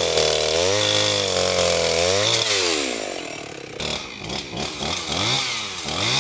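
Chainsaw cutting through a fallen willow trunk, its engine pitch dipping and rising as the chain loads up in the wood. Partway through it runs lower and uneven with quick short revs, then picks up again near the end.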